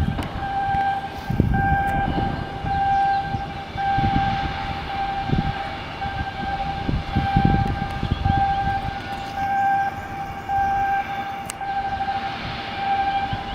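An electronic warning tone pulsing about once a second, steady in pitch, over uneven low rumbling from machinery or wind.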